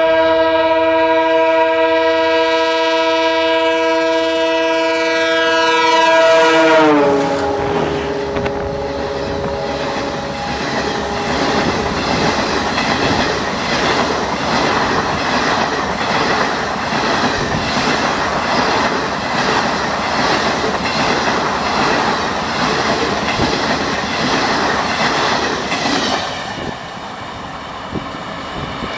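WDM-3A diesel locomotive's horn sounding one long chord of several notes, dropping in pitch about seven seconds in as the locomotive passes. Then the train's coaches rush past at speed with a steady clatter of wheels over the rail joints, until the sound falls away about 26 seconds in as the last coach goes by.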